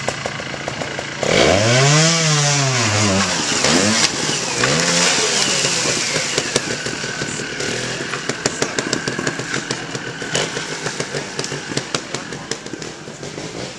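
Trials motorcycle engine revved hard as the bike climbs a rocky step: a sudden burst of throttle about a second in that rises and falls in pitch, a second shorter blip, then the engine running on and fading as the bike moves away, with many sharp clicks.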